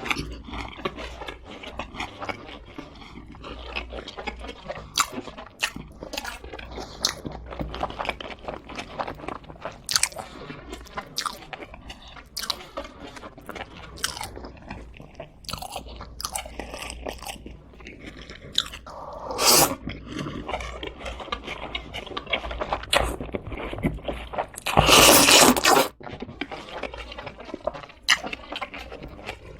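Close-miked crunching and chewing of fried chicken, crisp bites and mouth sounds coming one after another. A louder burst of noise lasting about a second comes near the end.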